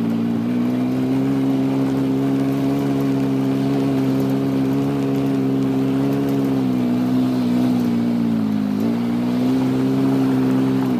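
Vehicle engine running at a steady speed, with its pitch dipping slightly and recovering a couple of times in the second half.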